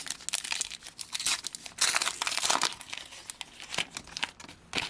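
A Panini Adrenalyn XL trading-card pack's plastic wrapper being torn open and crinkled by hand: irregular crackling, thickest around the middle.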